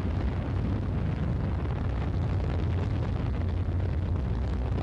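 Steady low rumble with a deep hum from a Soyuz-2.1b rocket's second-stage engine burning in flight, running normally.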